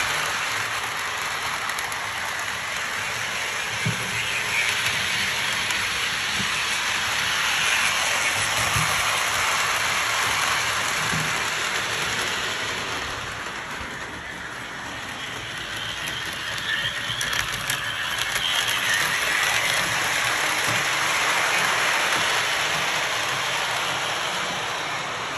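Lionel O-scale Mickey's Christmas Train running on the track: a steady rolling rumble of metal wheels and motor. It fades somewhat about halfway through and swells again, with a few faint clicks over track joints.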